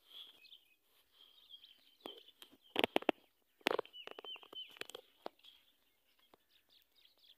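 Small birds chirping, with short falling call notes about four seconds in, and a few sharp clicks and crackles around three and four seconds in.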